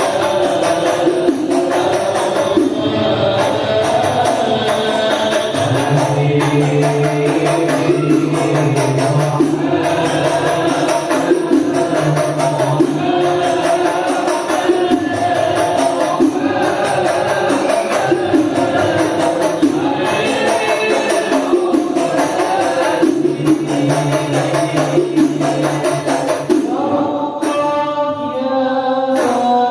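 Indonesian shalawat music: voices singing a devotional melody over a steady beat of rebana frame drums, with a long held, wavering vocal phrase near the end.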